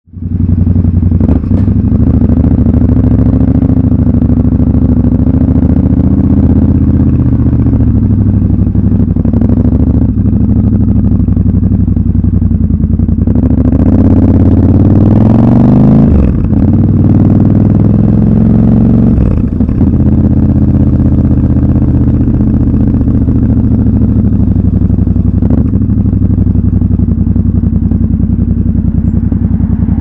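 Triumph Scrambler 1200 XC's parallel-twin engine running on the move. The revs climb about halfway through, then drop abruptly twice before settling into a steady run.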